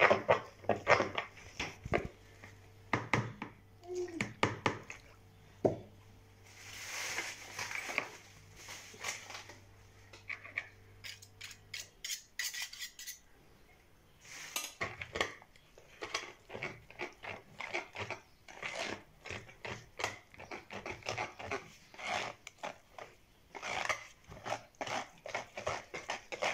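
Wire whisk beating and scraping around a plastic bowl in quick, repeated strokes, stirring crushed biscuits and milk into a thick cake batter. The strokes come thickest in the second half.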